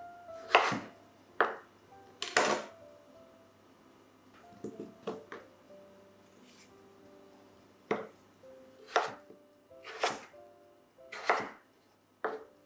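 Chef's knife slicing through peeled raw potatoes and knocking on a wooden cutting board: about nine sharp cuts at an uneven pace, with a pause in the middle while a potato is turned in the hand.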